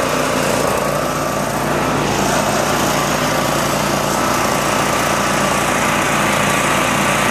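Robinson Subaru EH18 six-horsepower single-cylinder engine on a walk-behind mower running steadily at a constant speed, just after a cold start with the engine not run for several years.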